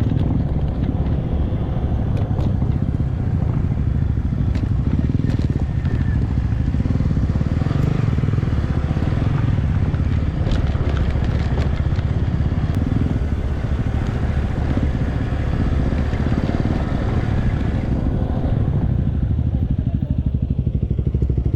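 Motorcycle engine running steadily while riding along, a continuous low rumble with road noise.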